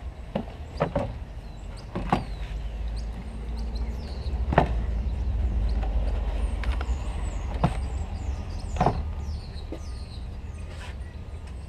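A car battery being set down into its tray and shifted into place: a handful of irregular clunks and knocks of the heavy battery case against the plastic tray, the loudest about halfway through, over a steady low outdoor rumble.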